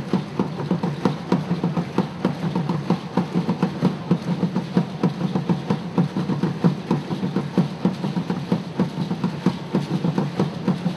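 Live Afro-Haitian hand drumming: a drum ensemble playing a fast, dense, steady rhythm.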